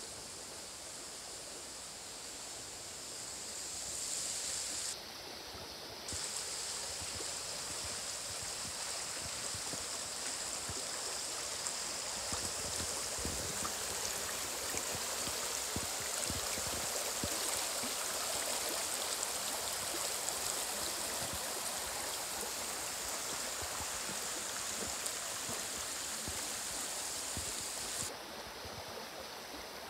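Shallow woodland stream running over mossy stones, a steady rushing and gurgling of water. It grows louder a few seconds in and drops off suddenly near the end.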